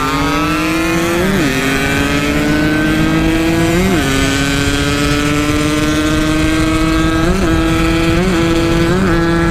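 Yamaha RX-King's two-stroke single-cylinder engine pulling hard through a stock-look Packing Power exhaust. Its pitch climbs slowly and steadily, broken by five brief dips, the last three close together near the end.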